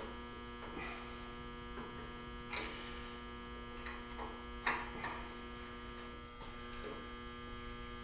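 Steady electrical mains hum, with a few light knocks or clicks scattered through it, the sharpest about two-thirds of the way in.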